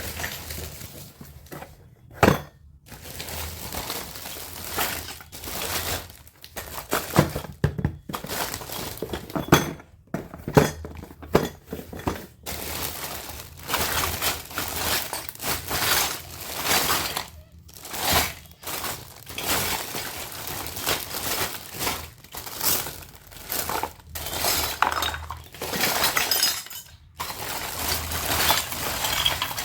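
Miniature plastic toy kitchen pieces and their packaging being handled: crackly crinkling and rustling with many small clicks and clinks, and a sharp knock about two seconds in.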